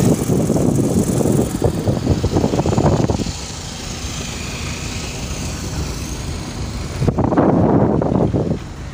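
Car driving slowly over unpaved ground, heard from inside the car: engine and rumbling road noise, loud for the first three seconds, quieter in the middle, and loud again from about seven seconds in.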